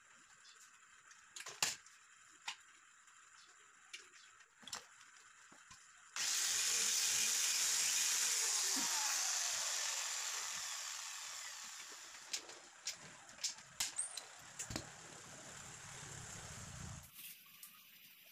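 Light metallic clicks and taps of hand tools working an aluminium square-tube frame. About six seconds in, a loud hiss starts suddenly and fades away over several seconds, then the scattered clicks resume.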